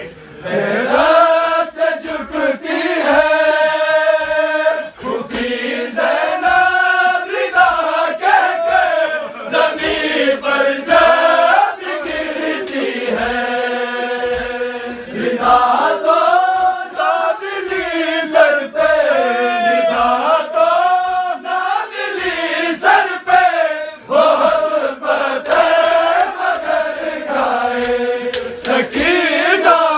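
Male voices chanting a Shia noha, a mourning lament for Muharram, in a slow rising and falling melody, with regular low thumps of chest-beating (matam) beneath the singing.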